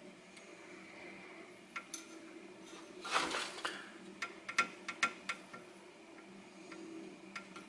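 Soldering iron melting solder onto a pad of a car engine computer's circuit board: a short hissing sizzle about three seconds in, followed by a quick run of small sharp clicks and ticks, over a faint steady hum.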